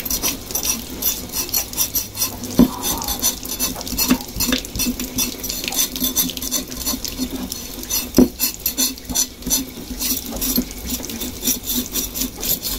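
Scraping the singed skin of a pork trotter clean in quick repeated strokes, with a few louder knocks against it.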